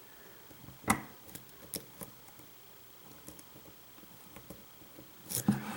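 Small metallic clicks and ticks of a hook pick and tension wrench working the pins of a pin-tumbler lock, with one sharper click about a second in and a quick cluster of clicks near the end.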